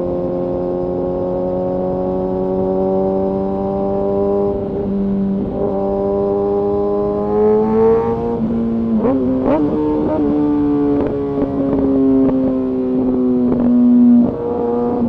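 Kawasaki ZX-6R sportbike's inline-four engine and exhaust running at a steady cruise, its pitch slowly rising. About halfway there is a short stretch of uneven revs with a few sharp crackles, and near the end the sound briefly breaks, as at a gear change.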